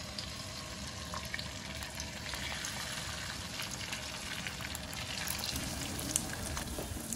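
Beaten egg mixed with chopped Chinese toon leaves sizzling in hot oil in a wok as it is poured in and spreads, a steady frying hiss with small crackles.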